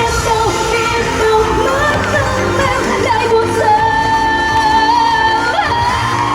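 Pop song playing with a singing voice holding long notes that slide between pitches over a steady backing track.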